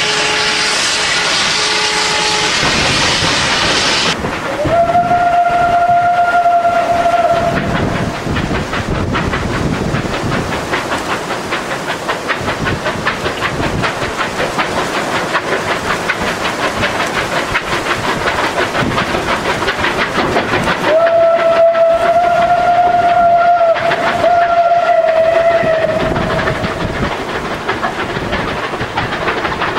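Double-headed ČSD steam locomotives, a class 534.0 and a class 556.0, working a train with steam hissing. Their steam whistles sound at the start, again briefly about five seconds in, and in one long blast about three-quarters of the way through. Between the whistles there is the steady rhythmic sound of the train running on the line.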